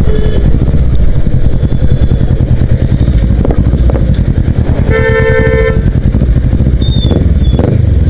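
Kawasaki Ninja motorcycle engine running steadily as it rides through town traffic. About five seconds in, a vehicle horn honks once for under a second.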